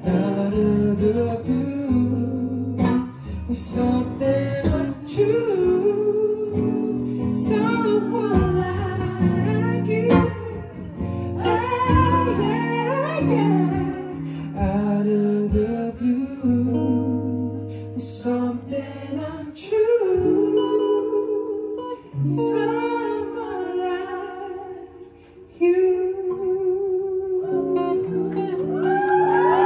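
Live acoustic song: a male singer singing over a strummed acoustic guitar. The music drops briefly quiet about 25 seconds in, then a long held note carries through to the close.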